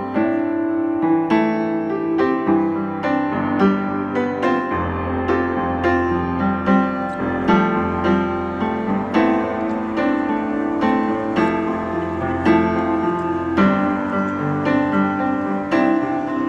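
Piano music: a run of struck notes and chords over low held bass notes.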